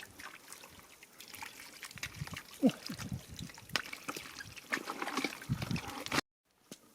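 Water trickling and splashing in shallow canal water, with scattered small clicks and splashes. The sound drops out suddenly for about half a second near the end.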